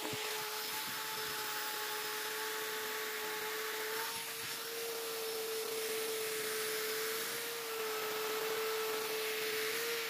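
Electric drill with a sanding disc in its chuck, spinning against a steel knife blade: a steady motor whine over a rough abrasive hiss, its texture shifting about four seconds in.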